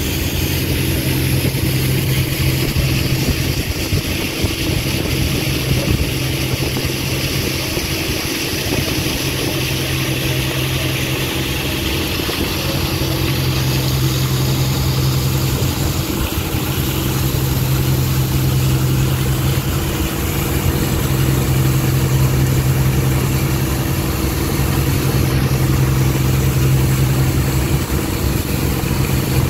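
Ferry engine running steadily under way, a constant low hum, under an even hiss of water rushing along the hull.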